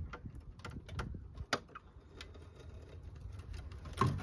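Scattered light metallic clicks and creaks from a K-car wagon's rear axle and coil springs as the axle is let down on a floor jack, with a louder knock near the end.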